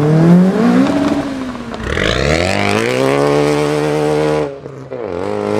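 A performance car's engine revving hard as it accelerates away, its pitch climbing and falling several times as it is pushed through the revs. The revs hold high for about a second, then cut off abruptly about four and a half seconds in before climbing again.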